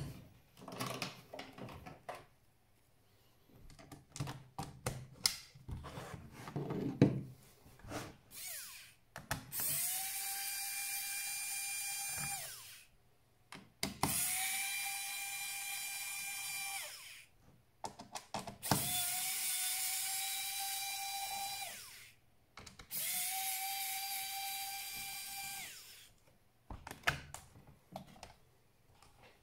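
Small electric screwdriver motor running in four separate bursts of about three seconds each, spinning up quickly at the start of each and then holding a steady whine. Scattered clicks and knocks of handling come before and after the bursts.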